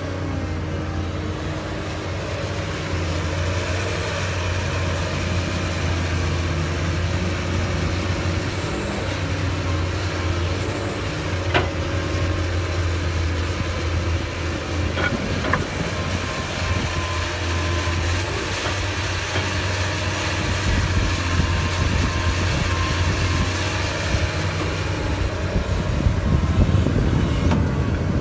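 Doosan DX225LCA crawler excavator's diesel engine running steadily with a low drone as the machine digs and swings soil. A few sharp clanks come around the middle, and the sound grows a little louder and rougher near the end.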